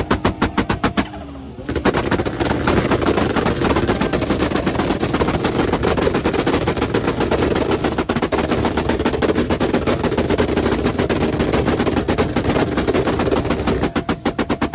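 Toyota MK4 Supra's turbocharged 2JZ inline-six held at revs on rolling anti-lag, its exhaust firing a rapid machine-gun string of loud bangs and pops over the engine note. The bangs pause briefly about a second in, then run on almost without a break and come more spaced out near the end.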